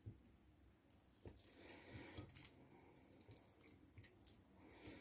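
Faint wet squelching, on and off, of hands massaging a spiced chermoula marinade into raw chicken drumsticks.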